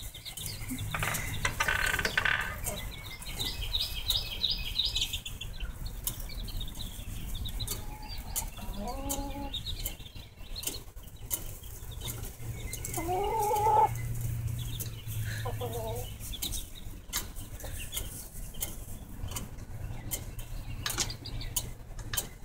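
Hens clucking now and then: a few separate calls, the longest about a third of the way from the end, rising and then falling, with scattered light clicks between them.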